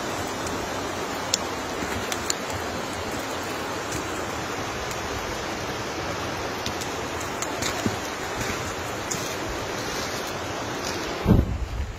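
Steady rushing of a fast mountain river, with a few sharp clicks over it. Near the end the rush drops away and low thumps hit the microphone.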